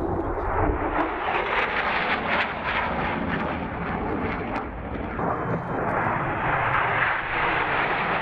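Military fighter jet flying low past, its jet engines giving a loud, steady rushing noise throughout.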